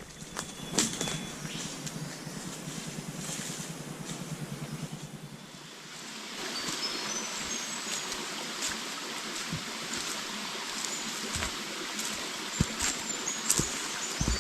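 Footsteps on a bush walking track, with a steady rushing noise setting in about six seconds in and a few short high bird chirps over it.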